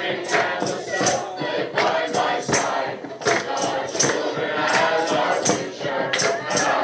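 Amateur choir singing together, with sharp percussive strikes keeping a beat about twice a second.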